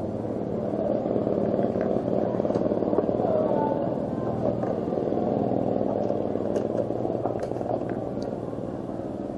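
A vehicle engine running steadily, with a few light clicks and rattles over it.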